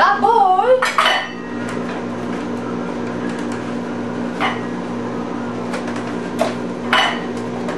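Foam egg carton being opened and handled with gloved hands, giving a few sharp clicks and crackles, over a steady electrical hum from a kitchen appliance. A brief voice sounds in the first second.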